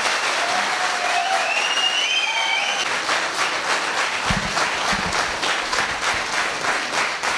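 Theatre audience applauding a curtain call: steady, dense clapping, with a brief high call from the crowd about two seconds in and a few low thumps about four seconds in.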